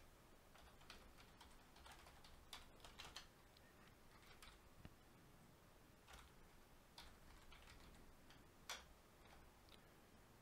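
Faint computer keyboard typing: scattered, irregular key clicks, with a slightly louder click near the end.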